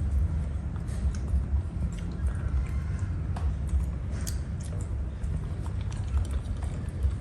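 Monkey chewing and biting grapes: small scattered clicks and wet crunches over a steady low rumble.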